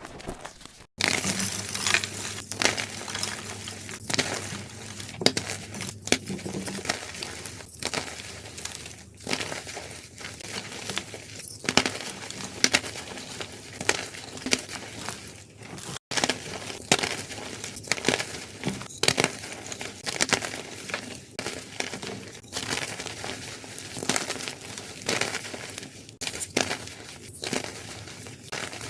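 Gym chalk being crushed and crumbled, a dense run of crunching and crackling with many sharp little clicks. There are two brief breaks, about a second in and about halfway through.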